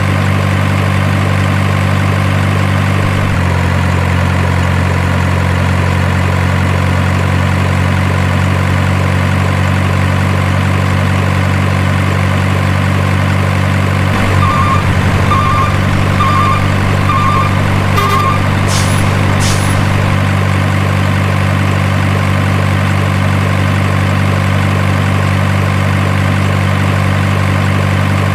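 Heavy truck diesel engine idling steadily, its note shifting slightly a few seconds in. Partway through comes a run of about five short beeps, then two short hisses.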